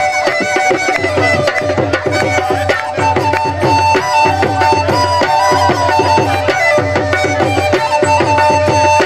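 Alghoza (Punjabi–Saraiki double flute) playing: one pipe holds a steady drone while the other plays a stepping melody, over a fast, driving drum rhythm for jhumar dancing.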